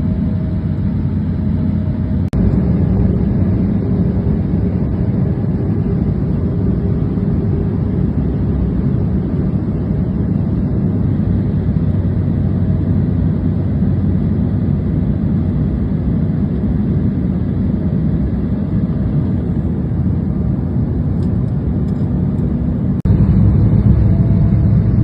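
Steady cabin noise of an airliner in flight: an even, low rumble of engines and airflow. The level steps up suddenly about two seconds in and again near the end.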